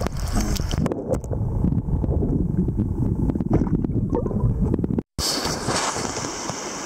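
River water heard from underwater: a muffled low rushing and bubbling with scattered clicks and knocks. After a brief cutoff about five seconds in, it gives way to the open-air rush of river rapids.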